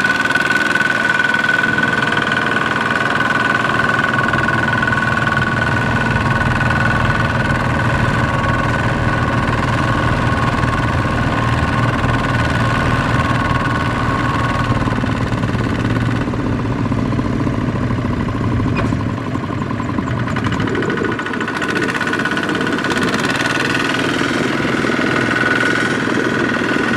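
Kubota ZT155 single-cylinder diesel on a two-wheel walking tractor running steadily while pulling a trailer loaded with rice sacks through deep mud. The engine note changes about two-thirds of the way through.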